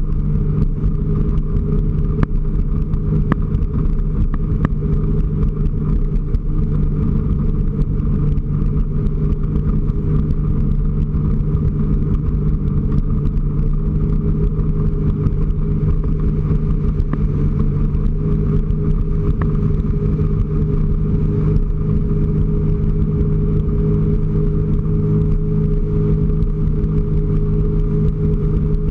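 A 2008 Sea-Doo RXT personal watercraft's supercharged Rotax 4-TEC four-stroke engine running at a steady cruise, its drone holding an even pitch, under the rush of wind and choppy water.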